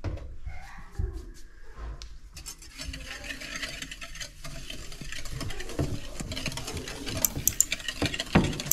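Dough ingredients being stirred by hand in a bowl: a dense run of small clicks and scrapes that starts about two seconds in and gets busier, with a few sharper knocks near the end.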